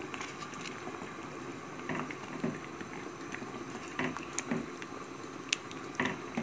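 Thick cassava-flour porridge simmering and bubbling in a steel pot while a silicone spatula stirs it. Soft pops and knocks come now and then over the steady bubbling.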